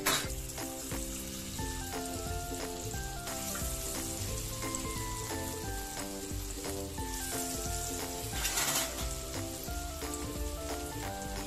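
Vegetable fritters of bean sprouts, cabbage and egg batter sizzling steadily in hot frying oil, the sizzle swelling briefly about three quarters of the way through. Background music plays along.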